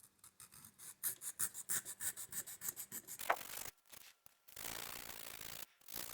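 Sandpaper rubbing on a stainless-steel watch case to take out scratches. There are quick short strokes, about four a second, and then two longer, steady strokes near the end.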